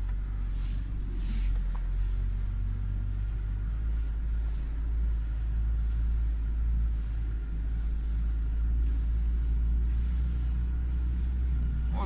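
The 2019 UAZ Patriot's ZMZ Pro four-cylinder petrol engine running at low revs while the SUV drives, a steady low rumble with a few faint rustles over it.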